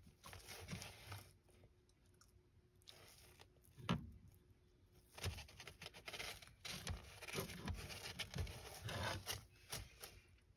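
Savanna monitor biting and tugging at a hornworm held in plastic feeding tongs: faint, irregular crunching and scraping clicks, with one sharper click about four seconds in and more of them in the second half.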